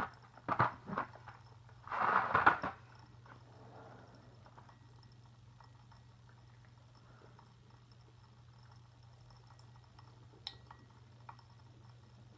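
A loud slurp of a fizzy candy drink from a glass about two seconds in, after a few shorter mouth-and-liquid noises; then only a faint steady hum, with a small click near the end.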